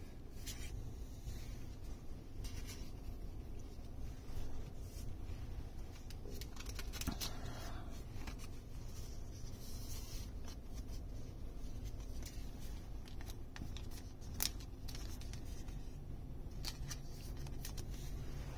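Magic: The Gathering cards and a clear plastic sleeve being handled and set down on a table: scattered soft taps and rustles, with one sharper click about two-thirds of the way through, over a low steady hum.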